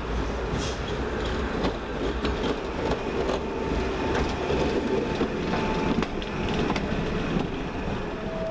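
Class 139 Parry People Mover railcar running slowly past on the branch track: a steady rumble with scattered clicks from the wheels on the rails. A faint thin whine comes and goes partway through.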